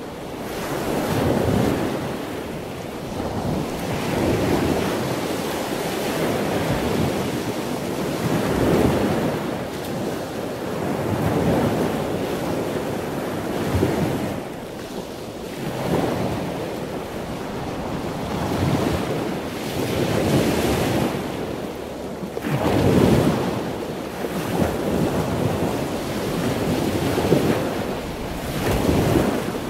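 Heavy storm surf breaking and washing up against a beach bulkhead, swelling in surges every few seconds, with wind buffeting the microphone.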